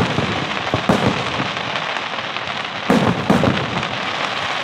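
Aerial fireworks bursting, with sharp bangs at the start, about a second in, and twice around three seconds in, over a steady dense crackling from crackle stars.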